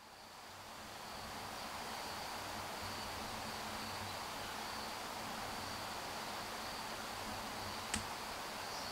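Insects trilling steadily on one high, even note over a soft background hiss, fading in over the first second, with a single sharp click near the end.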